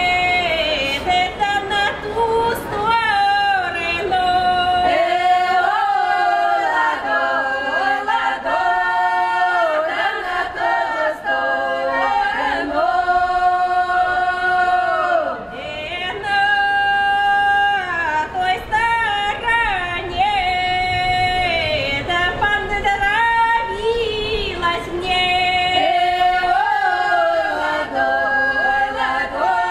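A folk ensemble singing a traditional song unaccompanied in several voices, with long held notes and slides between them.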